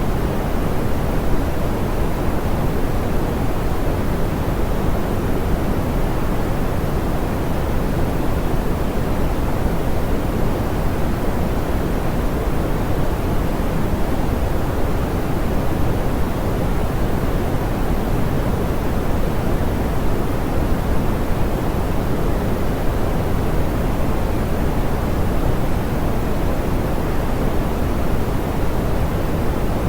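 Steady synthetic pink noise, soft and smoothed: an even hiss weighted toward the low end, with no change or events.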